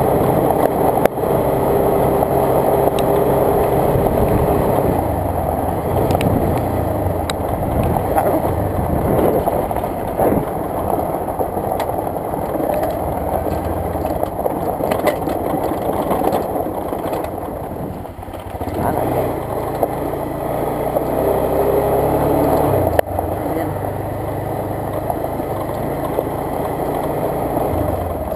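Motorcycle engine running under way on a dirt road, mixed with wind and road noise. About two-thirds through it eases off briefly, then picks up again with a rising engine note, and a single sharp knock follows.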